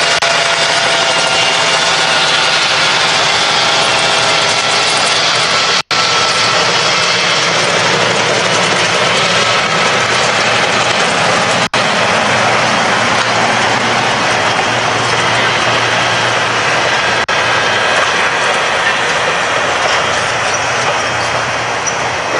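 Streamlined steel passenger cars rolling past at close range: a loud, steady rumble and rush of wheels on rail, with thin high squealing tones through the first several seconds. The sound cuts out for an instant about six seconds in and again near twelve.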